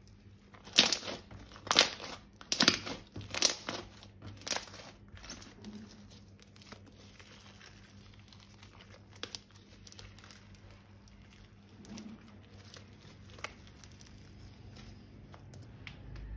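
Plastic being crumpled and crinkled by hand: five loud crinkles in quick succession in the first few seconds, then only faint, scattered crackles.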